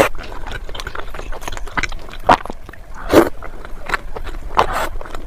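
Chewing and biting sounds: irregular crunching and crackling, with a few louder crunches.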